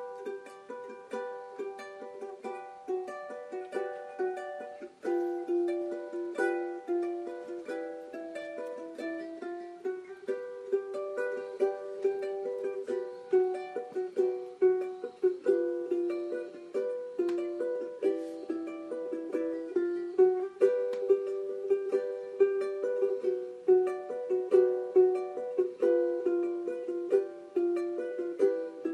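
Solo ukulele playing a plucked melody of single notes and small chords in a steady rhythm. It gets a little louder, with sharper plucks, about halfway through.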